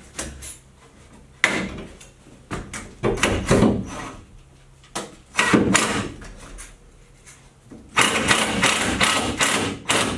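Cordless power driver sending drywall screws through a wooden furring strip into the bus ceiling, running in several short bursts with pauses between them.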